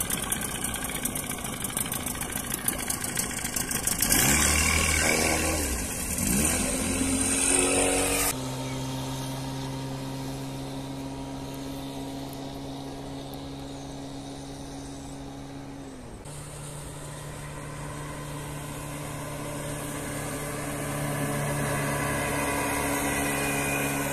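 Johnson 35 hp two-stroke outboard motor running on a small speedboat, its pitch rising and falling through the first several seconds, then settling into a steady drone that steps a little higher about two-thirds of the way through.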